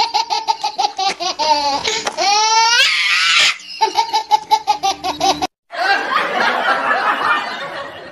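High-pitched laughter in a fast run of repeated ha-ha pulses, with a couple of rising squeals about two seconds in. It breaks off abruptly about five and a half seconds in, and a denser, messier stretch of laughter follows.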